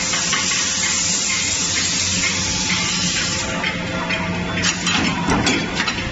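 Forge-shop machinery running with a steady hum under a loud, even hiss like spraying air, which stops about three and a half seconds in. After it come several sharp metallic knocks and clanks as hot forged chain links are handled at a mechanical trimming press.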